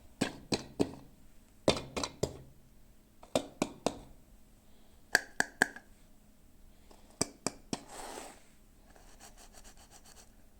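Hands unboxing small plastic toys: sharp clicks and taps coming in quick sets of three, five times over, then a brief rustle of packaging and faint scratching near the end.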